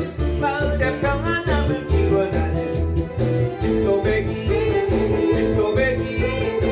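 A man singing a Korean trot song into a microphone over a backing track with a steady, pulsing bass beat.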